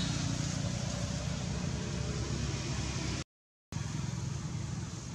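Steady low rumble with an even hiss over it, outdoor background noise with no clear single source; it cuts out completely for about half a second a little after three seconds in, then carries on as before.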